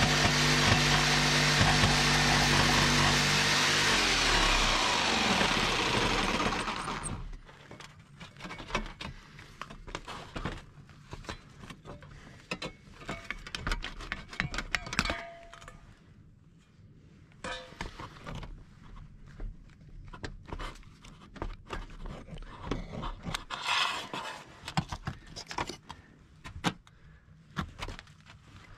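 Falke corded jigsaw cutting through a ribbed steel roof panel, its motor running loud and then winding down, falling in pitch and stopping about seven seconds in. After that, scattered short knocks and clicks of the saw and sheet metal being handled.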